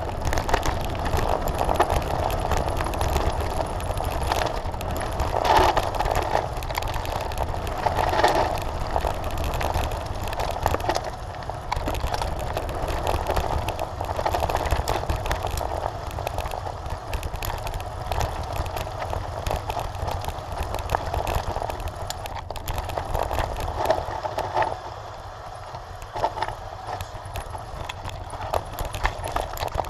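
Mountain bike descending a rough gravel and rocky trail: the bike rattles and the tyres crunch over loose stones, with wind buffeting the microphone. The noise eases off for a moment near the end.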